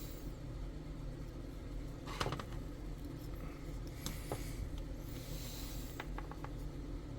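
Small clicks and taps of tools and parts being handled at a soldering bench, over a steady low hum. There are short bursts of clicks about two, four and six seconds in, and a brief hiss around five seconds in.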